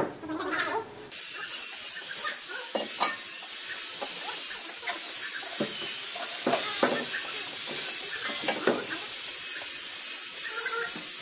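Steady high hiss starting about a second in, with scattered knocks and taps from a heavy wooden door leaf being handled and stood into its frame.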